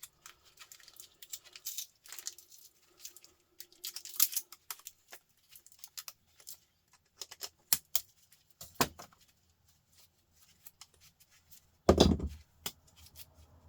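Scattered clicks and light metallic clinks of small metal parts and cells being handled as a multi-cell battery is pulled apart by hand. There is a heavier knock near nine seconds, and the loudest, a dull thud, about twelve seconds in.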